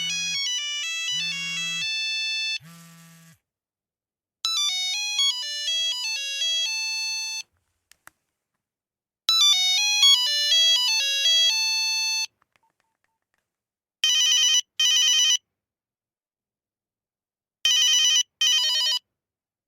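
Nokia 8201 mobile phone ringtones: three short electronic melodies of quick beeping notes, the first with a low buzz pulsing under it three times, then a double ring burst that repeats about every three and a half seconds.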